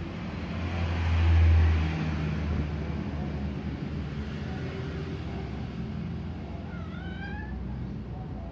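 A cat gives a short rising meow near the end, over a steady low rumble that swells to its loudest about a second in.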